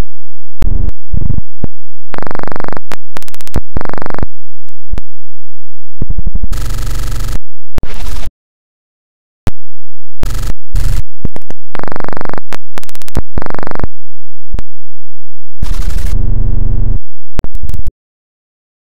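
Harsh, heavily distorted electronic audio at full loudness, chopped into abrupt bursts that start and stop suddenly, with short dead silences between them.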